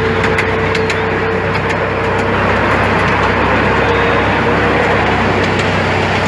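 Miniature railway train running along its track, heard from a passenger carriage: a steady rumble of wheels on the rails with scattered clicks in the first two seconds. A steady whine fades out about two seconds in.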